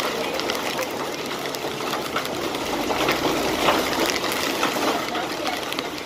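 Torrential wind-driven rain in a violent gusting storm: a loud, steady rush of wind and rain with scattered patters of drops striking.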